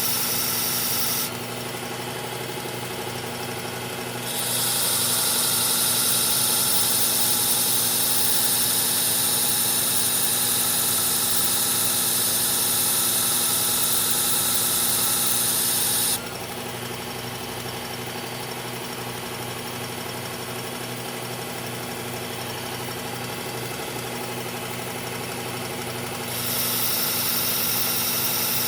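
Electric knife sharpener's motor running steadily while a knife blade is ground against its abrasive. A loud grinding hiss comes in about four seconds in, stops about halfway, and starts again near the end, each time the blade is put to the abrasive and taken away, over the motor's constant hum.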